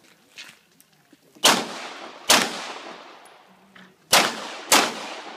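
Four pistol shots from a CZ SP-01 Shadow 9mm, fired as two pairs: one pair about a second and a half in, the next about four seconds in. Each shot is followed by a long fading echo.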